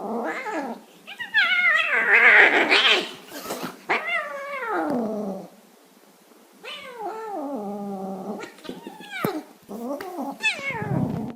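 Domestic cat meowing repeatedly: a string of about six drawn-out, whiny meows, several falling in pitch, the loudest and longest about two seconds in, with a short pause near the middle.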